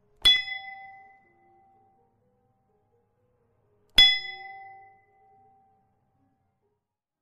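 A bell struck twice, about four seconds apart, each strike ringing out with a bright tone that dies away within about a second.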